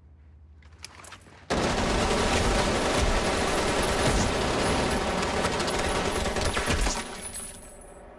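Sustained automatic rifle fire from several guns at once. A couple of short sharp sounds come about a second in, then a dense fusillade starts suddenly about a second and a half in and runs about five and a half seconds before dying away.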